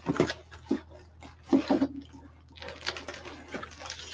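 Cardboard shipping box being handled as comics are unpacked: a string of light knocks and taps on the cardboard, then a longer scraping rustle about two-thirds of the way through.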